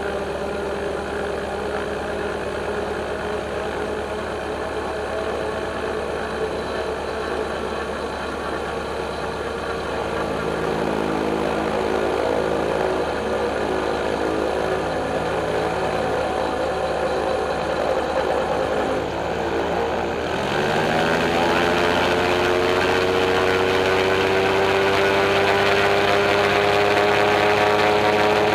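Sportcopter II gyroplane's engine and propeller running steadily at low power, then about two-thirds of the way through the engine speeds up sharply and keeps rising slowly in pitch as power comes up for the takeoff roll.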